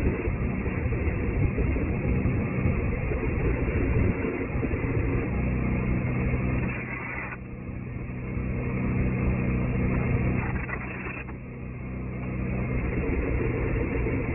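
An engine running steadily, with the level easing off twice, about halfway through and again near the end.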